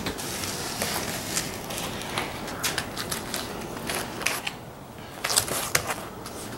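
Irregular light clicks and crackles from hands working the foam covering on a car roof, with a cluster of them near the end.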